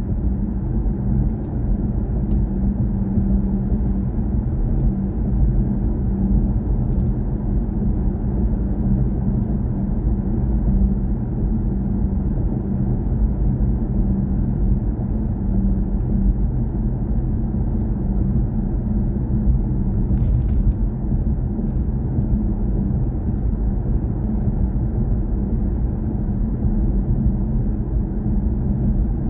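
BMW i4 M50 electric car driving at a steady speed: a continuous low rumble of tyre and road noise that barely changes.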